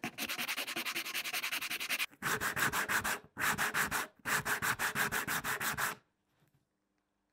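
A sanding block rubbed rapidly back and forth along a rock-hard stick of dried skipjack (katsuobushi), giving a fast, rasping scrub. It comes in several runs with short breaks and stops about six seconds in.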